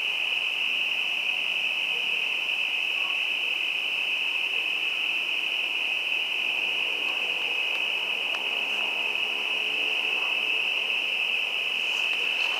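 Insects at night keeping up one continuous high-pitched trill, steady and unbroken.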